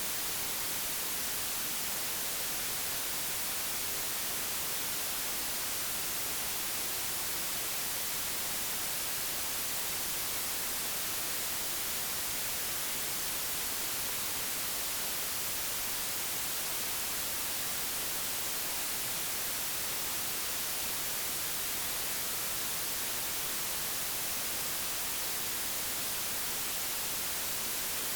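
Digitally generated white noise: a steady, even hiss with no change.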